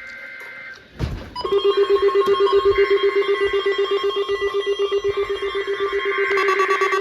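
Emergency alert tones from a weather-radio broadcast. It opens with a short buzz of two-pitch data tones, then a click about a second in. Then comes a loud electronic alarm beep, pulsing several times a second, that carries on.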